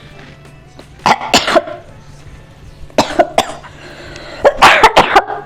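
A person coughing in three harsh fits, two or three coughs each, set off by breathing in the fumes of roasted red chillies: a cough rather than the sneeze being tried for.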